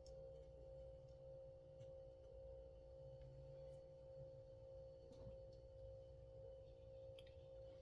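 Near silence: a faint steady hum on one pitch, with a few faint scattered clicks.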